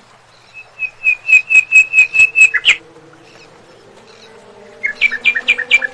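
A bird calling: a rapid run of about nine loud, clear, evenly spaced notes, about four a second, then a shorter and faster run of four or five notes near the end.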